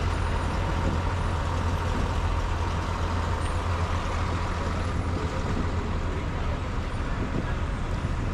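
Idling engine of a Mascarello Gran Via bus, a steady low hum over street noise, easing slightly near the end.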